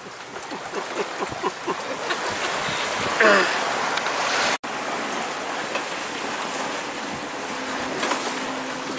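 Steady rush of wind and water aboard a sailboat under sail, with a short falling voice sound about three seconds in.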